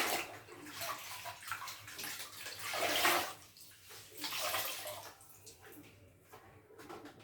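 Water splashing and sloshing in irregular bursts as a wet cleaning cloth is worked in a bucket of water. It dies down about five seconds in.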